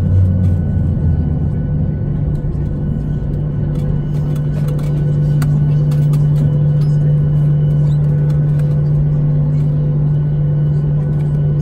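Cabin noise of a Boeing 737-800 taxiing after landing: a steady hum from the CFM56-7B engines at idle, with a low rumble underneath. A deeper drone dies away about a second in.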